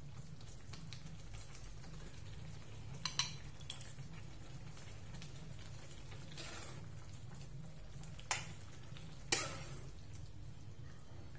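Soup being ladled into a ceramic bowl: a few short, sharp clinks of a metal ladle against the bowl, the loudest near the end, and a soft splash of broth about halfway through, over a steady low hum.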